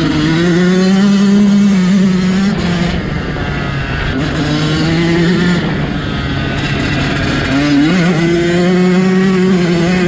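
Yamaha YZ125 motocross bike's single-cylinder two-stroke engine being ridden, revving up and easing off several times, its pitch climbing near the start, again about halfway through and sharply near the end.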